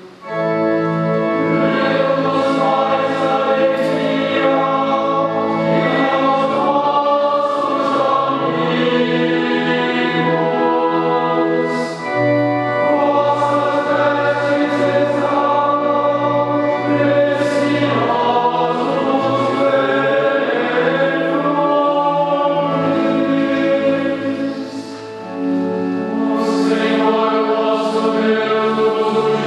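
A choir singing sacred music in long, held phrases, with brief pauses between phrases about twelve and twenty-five seconds in.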